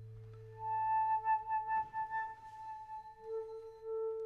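Contemporary chamber music: a flute holds a long, slightly wavering note from about half a second in, and a lower held note swells in near the end.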